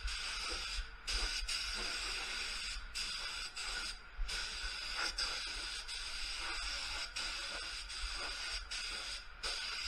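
Gravity-feed spray gun hissing steadily as it sprays clear coat, the air cutting off for a moment a few times between passes.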